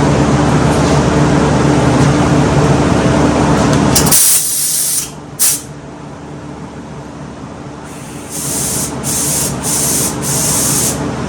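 Steady loud machine noise with a low hum that cuts off about four seconds in, followed by short hissing bursts from a spray gun laying down Rust Encapsulator coating: one or two just after the cutoff, then a run of about four bursts near the end.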